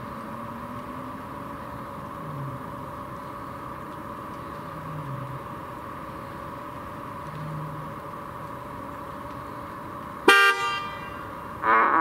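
Tesla Model Y car horn sounding twice near the end: a short, sharp toot, then a longer toot about a second and a half later, over a steady background hum.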